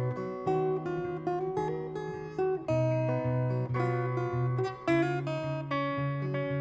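Acoustic guitar playing an instrumental passage of a worship song, strummed chords with ringing notes that change every half-second or so.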